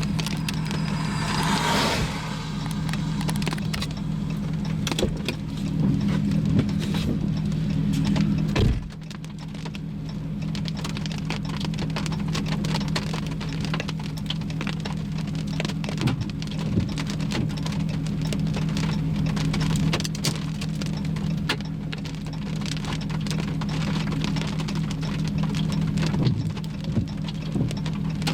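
Rain hitting a vehicle, with many scattered sharp ticks of drops over a steady low engine hum.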